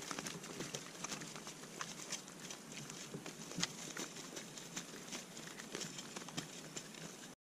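A fish thrashing in a landing net lifted out of the water, giving a scatter of irregular splashes, drips and slaps.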